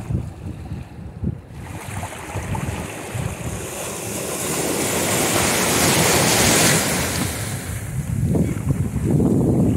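Small sea waves breaking and washing up the shore, their hiss building to a peak about six seconds in. Wind gusts buffet the microphone at the start and again near the end.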